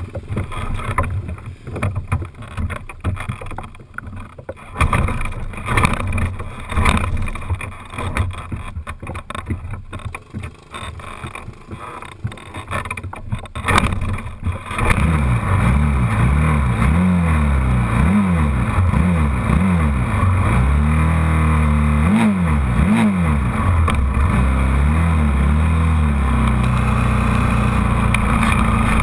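Quad (ATV) engine, heard from a camera mounted on the quad. For the first half there is only an uneven low rumble with thumps. About halfway in a steady engine sound comes in suddenly and is revved up and down about once a second, then holds a steady pitch near the end as the quad moves off.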